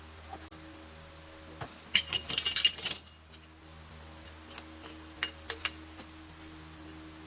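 Metal tools and parts clinking and rattling against each other, a quick run of ringing clinks about two seconds in and a few light clicks around five seconds.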